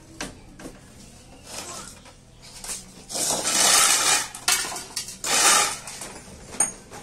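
Metal clattering and scraping in several loud bursts, with sharp ringing clinks near the end.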